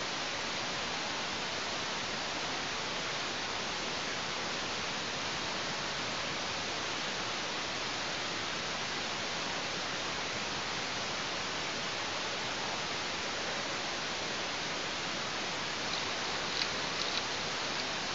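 A steady, even hiss with no other sound in it, with a few faint ticks near the end.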